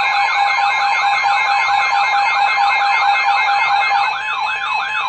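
Emergency Alert System attention signal that opens a Special Marine Warning: loud steady tones overlaid with a rapid warbling sweep, about six rises a second, which slows in the last second.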